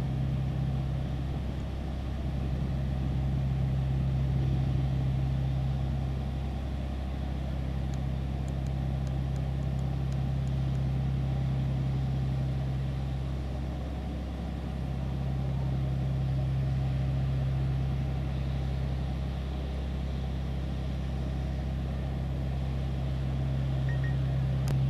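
Fire apparatus engine running steadily with a constant low hum, easing briefly about fourteen seconds in.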